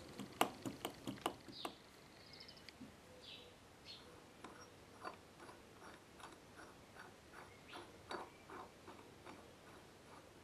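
Faint, light metallic clicks as a small brass check valve is worked by hand, its threaded beating rod moved in its guide tube. A quick run of about six sharp clicks comes in the first two seconds, then softer ticks about twice a second.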